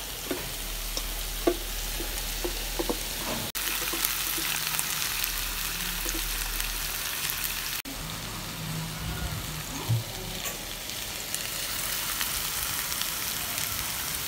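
Marinated chicken pieces sizzling in olive oil in a nonstick frying pan: a steady frying hiss with a few small pops in the first three seconds.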